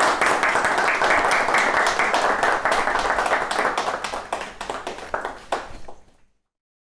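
A small group of people clapping, many separate claps close together, thinning out and stopping about six seconds in.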